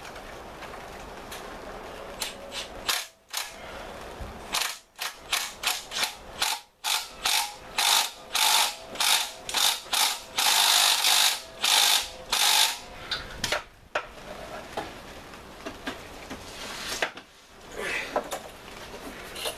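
Hand ratchet wrench clicking in a long run of short back-and-forth strokes, coming faster and louder in the middle and stopping about two-thirds of the way through, as an engine mount bolt is tightened.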